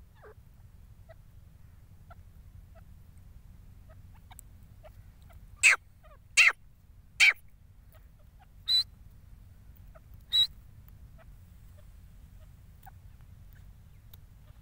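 Grey francolins calling at close range: five short, loud, sharp calls come in about five seconds about halfway through, the last two with a whistled ring. Faint soft chirps come between.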